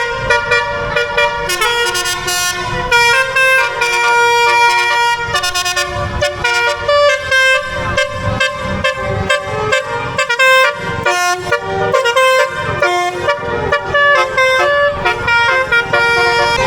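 Bus telolet horn playing a tune: a multi-note melody horn sounding many short, quick notes that step up and down in pitch.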